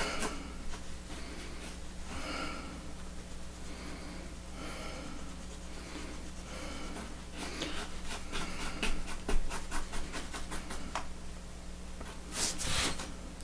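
A wooden stir stick scraping and stirring two-part epoxy on cardboard, with a run of quick short strokes in the middle, over heavy breathing. A short, louder rustle comes near the end.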